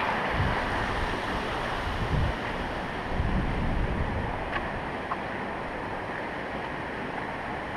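Small creek flowing, a steady rushing of water, with wind buffeting the microphone in a few low surges during the first four seconds.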